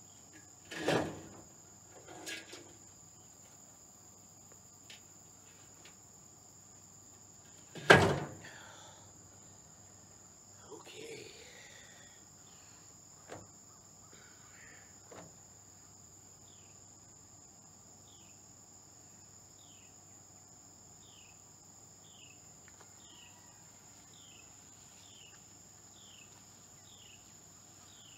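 Heavy cast iron cauldron knocking against its metal stand as it is handled and set down: a sharp knock about a second in, a softer one just after, one loud clank about eight seconds in, then a few light knocks. A steady insect drone sits behind, and a short falling chirp repeats a little over once a second through the second half.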